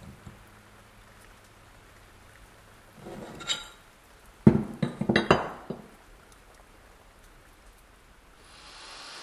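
Metal clinks and knocks of rusty model parts being handled on a workbench: a brief scrape about three seconds in, then a quick cluster of sharp clinks around the middle. A steady hiss rises near the end.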